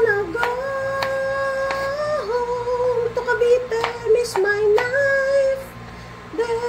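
Music with a high singing voice holding long, gliding notes, the loudest thing throughout. Under it come a few sharp taps of a chef's knife slicing garlic on a plastic cutting board.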